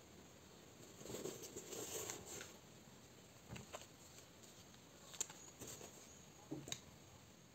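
Faint crinkling and rustling of a thin plastic sheet being handled, about a second in, followed by a few soft clicks and taps as small items such as a wallet and a lip balm tube are picked up and set down on carpet.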